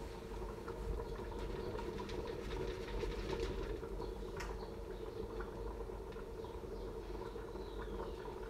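Pot of brothy seafood rice simmering on the hob: faint bubbling with scattered small pops over a steady low hum.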